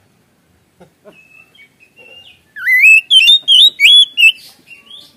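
Oriental magpie-robin singing: a few faint whistled notes, then, a little past halfway, a loud run of rising and leaping whistles lasting under two seconds, tailing off into softer notes.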